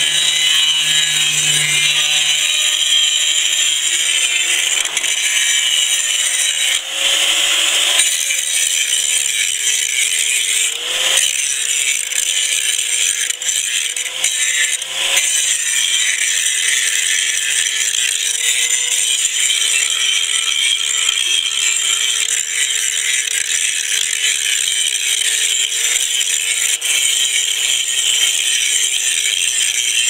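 Makita 4½-inch angle grinder with a general-purpose grinding disc grinding heavy rust off the steel of a 1968 Case 580CK backhoe bucket. The grinding hiss is continuous over the motor's steady whine, and the pitch dips a little several times as the disc is pressed harder into the steel.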